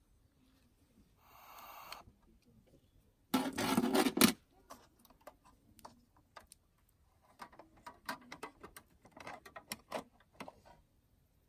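Light metallic clicks and small rattles from a brass folding candle lantern being handled and its hinged panels closed. About three seconds in there is a louder burst of noise, about a second long.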